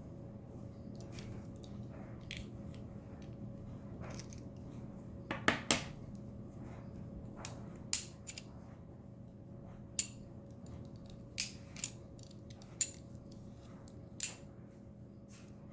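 Small sharp metallic clicks and clacks from a miniature Beretta model pistol being handled, about ten in all. They come singly or in quick pairs and triples, the loudest near the end, over a faint steady hum.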